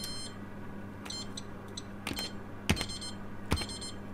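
Electronic oven control panel beeping: a short, high beep about once a second as the oven is set to a new temperature and baking time. Sharp clicks from the controls come twice near the end.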